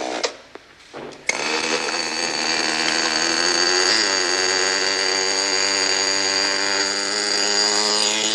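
Remote-control helicopter's small electric motor and rotor whining. It cuts in with a click about a second in, then runs steadily at high speed, dipping slightly in pitch near the middle.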